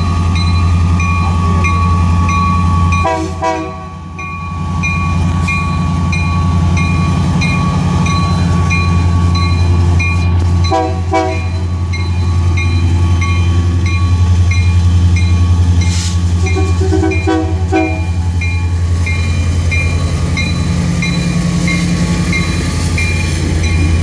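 Diesel-electric freight locomotives, a Union Pacific unit leading and CSX units trailing, passing close by under power with a loud, steady low engine drone. A high tone pulses about twice a second throughout.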